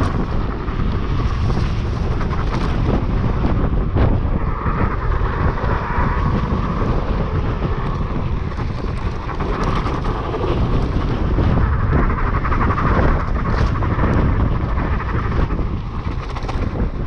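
Wind buffeting the microphone during a ride on a high-power electric bike with a QS 205 hub motor. Underneath runs a whine that rises and falls as the speed changes.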